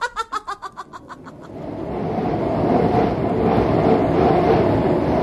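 A quick, high chuckling laugh tails off in the first second and a half. Then a rushing wind sound effect swells up and blows loudly and steadily, marking a change of scene to the wintry outdoors.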